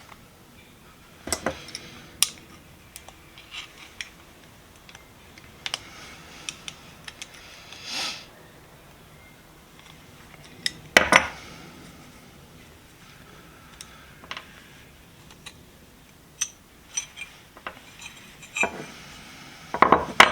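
Metal hand tools being handled: scattered light clinks and a few louder clanks, the loudest about eleven seconds in and near the end.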